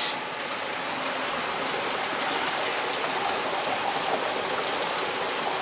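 Water flowing steadily through trout hatchery incubation trays: a continuous, even splashing hiss.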